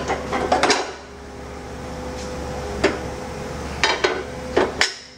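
Steel fixture plates knocking and clinking against each other and the press frame as they are set in place: a quick cluster of sharp metal knocks at the start, one about three seconds in, and several more near the end, over a steady background hum.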